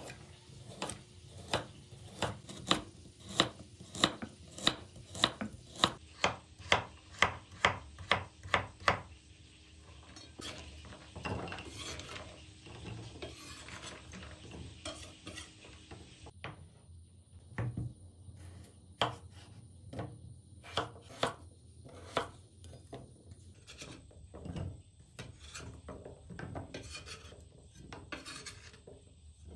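Chef's knife slicing a carrot into rounds on a bamboo cutting board: a steady run of sharp knocks about two a second, quickening a little. About nine seconds in, the knocks stop and slices are scraped and gathered across the board. From about sixteen seconds, irregular knocks follow as the knife cuts potatoes into chunks.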